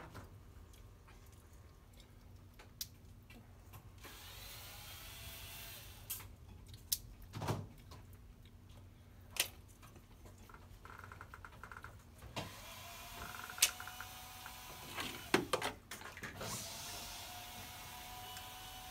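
Workbench handling noises: scattered sharp clicks and knocks of tools and parts. Two stretches of steady whirring hiss come in, one about four seconds in and one from about twelve seconds on.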